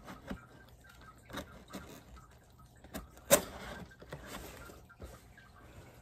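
Box cutter and hands working on a cardboard shipping box: a string of light clicks and scrapes, with one sharp click about three seconds in followed by a brief scraping rush.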